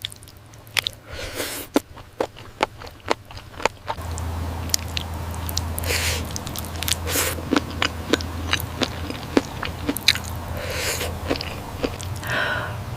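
Close-miked chewing and biting of spicy octopus: wet, sticky mouth clicks and smacks with a few soft slurps. A steady low hum comes in about four seconds in.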